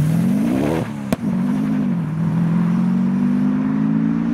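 LS V8-swapped Porsche Cayman accelerating away. The revs climb quickly, then drop with a single sharp crack about a second in, then rise slowly and steadily as it pulls off.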